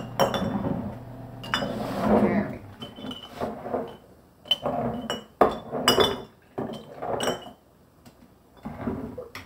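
Glass canning jars clinking and a metal ladle knocking against an enamel pot as tomato soup is ladled through a funnel into the jars: a dozen or so irregular sharp clinks with brief ringing.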